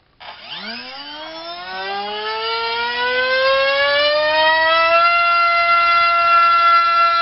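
RCinpower QAV2206-1900KV brushless motor on a thrust stand, spinning a HobbyKing 7035 propeller on a 4-cell battery. It whines, rising steadily in pitch as the throttle is opened, then holds at a steady top speed from about five seconds in, pushing about a kilo of thrust.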